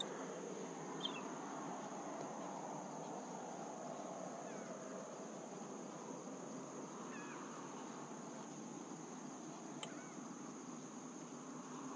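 Steady high-pitched insect drone from the marsh over a low background hiss, with a couple of faint chirps midway and a light click near the end.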